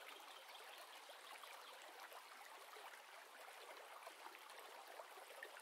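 Near silence, with only a faint steady trickle of running water in the background.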